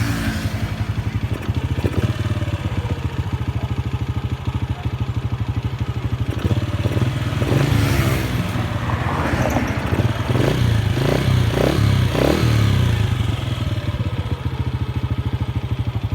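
Honda Wave R100's single-cylinder four-stroke engine idling, revved up and down through the middle with a run of short throttle blips, then settling back to a steady idle.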